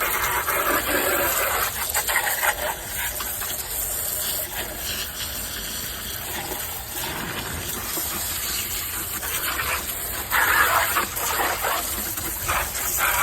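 Water from a garden hose pipe spraying into a plastic tool box as it is rinsed out, growing louder about ten seconds in.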